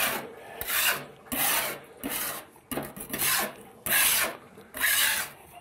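A flat metal scraper being dragged in short strokes, about one a second, along the edge of an automatic transmission's oil pan. It is scraping through the factory silicone sealant that holds the pan on in place of a gasket.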